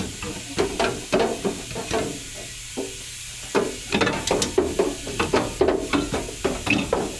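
Irregular knocks and scrapes of the loose catalytic converter and exhaust parts being wrestled out from under the car, at uneven intervals with a short lull about two and a half seconds in.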